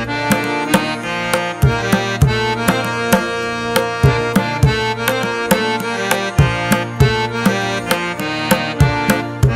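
Background music: a melody of held notes over a rhythmic drum beat.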